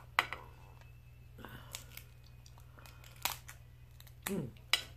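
Cooked lobster shell being cracked and snapped apart by hand: a handful of sharp, separate cracks and clicks spread over a few seconds.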